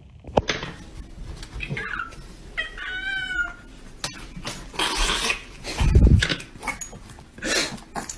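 A house cat gives a short, wavering meow about three seconds in, among scuffling and knocking noises. A heavy low thump about six seconds in is the loudest sound.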